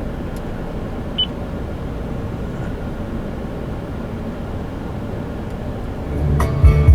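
Steady low rumble inside a running vehicle's cab, with a single short beep from the dashboard touchscreen about a second in. Music from the car stereo starts near the end.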